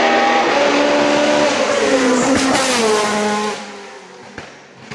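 Hill-climb race car engine at high revs as the car passes, its pitch stepping with gear changes and then falling as it goes by. The sound drops away sharply about three and a half seconds in.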